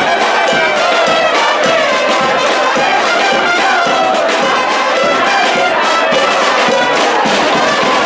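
A charanga band playing live: trumpets and trombones carrying a melody over steady drum and cymbal beats.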